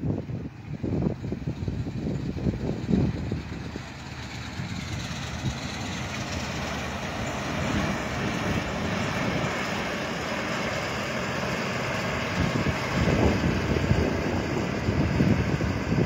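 Combine harvester running as it cuts wheat, its machine noise growing louder from about five seconds in as it comes nearer. Wind buffets the microphone with gusty rumbles at the start and again near the end.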